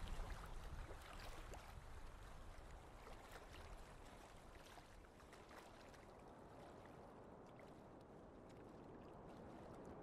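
Ocean waves washing with a fizzing crackle, fading away over the first half, then a smooth wind noise slowly rising near the end.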